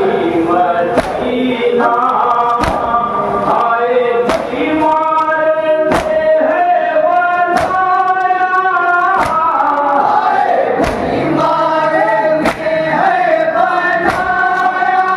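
A group of men chanting a nauha (Shia lament) in chorus over a loudspeaker. Sharp strikes of unison chest-beating (matam) land on the beat about every second and a half.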